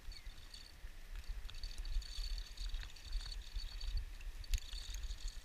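Crickets chirping steadily in a high-pitched trill over a low rumble on the microphone, with a faint click about four and a half seconds in.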